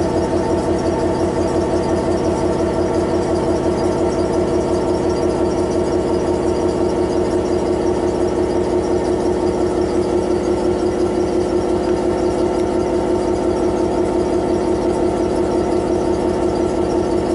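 Class 66 locomotive's EMD twelve-cylinder two-stroke diesel engine idling steadily, heard from inside the cab: a fast, even low pulse with a strong steady whine over it.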